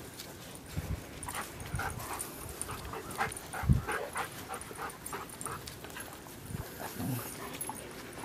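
Dogs at play giving a run of short, high cries, with a few low thumps, the loudest about three and a half seconds in.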